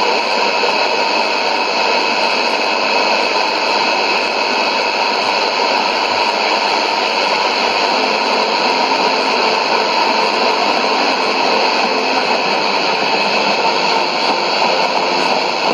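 Steady shortwave static and hiss from a Sony ICF-2001D receiver tuned to 15560 kHz AM, with faint steady whistling tones in it and no programme audio heard above the noise.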